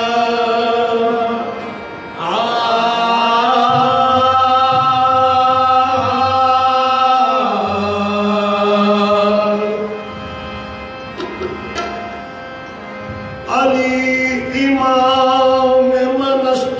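Qawwali music: a male singer holding long wordless notes that glide and step in pitch over harmonium, in two long phrases with a quieter stretch between them.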